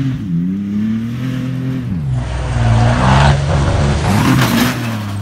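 Pickup truck engine revving hard as it charges up the dirt track for a jump, its pitch dipping about two seconds in and climbing again. A rush of tyre and dirt noise is loudest in the middle.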